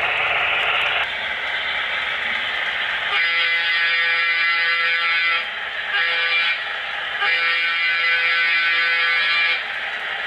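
HO-scale model diesel locomotive's sound-system horn blowing a multi-note chord three times: long, short, long. Steady running noise comes first, and it goes on under the horn.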